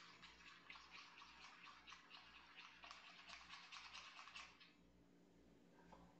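Faint spoon stirring creamy coconut butter in a small glass bowl, quick repeated strokes of about four a second that stop about four and a half seconds in.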